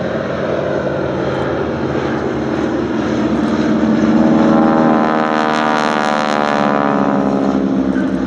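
Boeing Stearman biplane's propeller and engine drone growing louder to a peak about halfway through as the aircraft passes close by, then dropping in pitch as it flies away.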